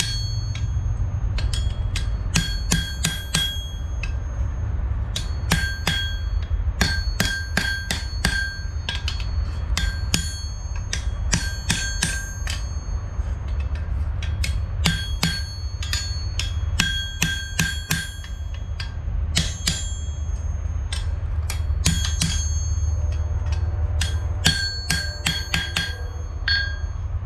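Hand hammer striking a hot horseshoe on an anvil in irregular runs of blows, each strike ringing on with a clear bell-like tone, over a steady low rumble.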